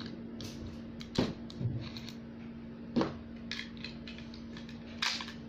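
Scattered plastic clicks and knocks from a toy spinning top and its ripcord launcher being handled and fitted together. Two sharper knocks come about a second in and about three seconds in.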